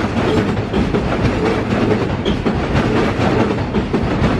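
New York City Subway train running on elevated steel track: a steady, loud rumble of wheels on rail with rapid clattering clicks.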